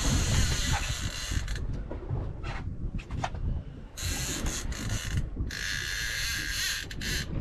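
Fishing reel ratcheting in bursts of a second or so, with short gaps, as a hooked fish is played on a bent boat rod, over a low rumble.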